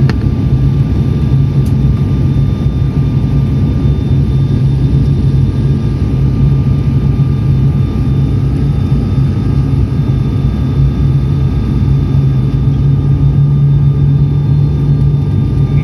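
Airliner cabin noise on approach for landing: the engines' steady drone with a strong low hum and faint, even whining tones above it, unchanging throughout.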